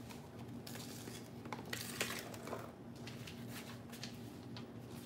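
Light clicks and knocks of things being handled and set down on a kitchen counter, over a faint steady hum.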